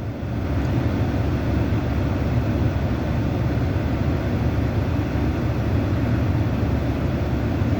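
Steady, even low rumble of a vehicle in motion, strongest in the bass and unbroken throughout.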